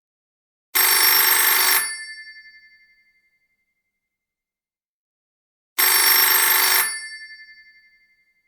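Telephone bell ringing: two rings about five seconds apart, each about a second long, with the bell tone fading out after each ring.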